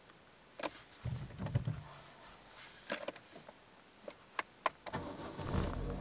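Warm start of an Opel Corsa C's 1.2 16v 75 hp four-cylinder petrol engine: a few clicks and knocks from the key and ignition, then the engine is cranked and catches about five seconds in, settling into a steady idle.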